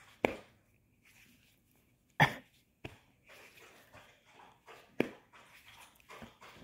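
Doberman making a few short, sharp sounds while being petted, spaced a couple of seconds apart, the loudest about two seconds in, with faint rustling between them.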